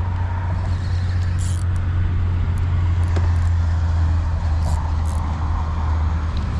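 Steady low hum of an Old Town ePDL kayak's electric-assist pedal drive running, with a few brief faint high ticks.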